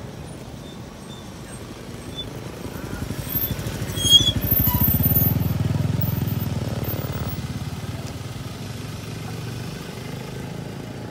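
A motor vehicle's engine passing close on a paved road: it grows louder to a peak about four to six seconds in, then fades away over the next few seconds. A sharp click comes near the loudest point.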